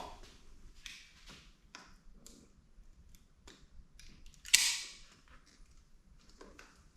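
A knife cutting worn, torn rubber handlebar grips off a dirt bike: scattered small clicks and short scrapes, with one louder, sharp scrape about four and a half seconds in.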